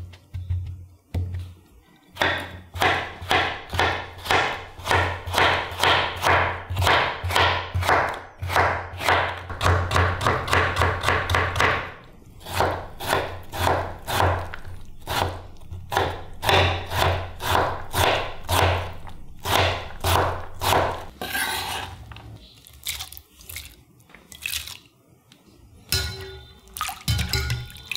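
Chef's knife chopping raw potato on a bamboo cutting board, quick steady knocks of the blade on the wood, about three or four a second, stopping about three-quarters of the way through. Near the end, water sloshes as diced potato is rinsed in a glass bowl with a wire strainer.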